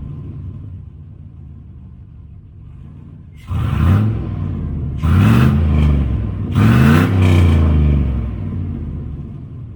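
Silverado's 6.0 LQ4 V8 running through its new turbo downpipe and exhaust: settling at idle, then revved sharply three times about a second and a half apart, each rev climbing and falling back before it settles again.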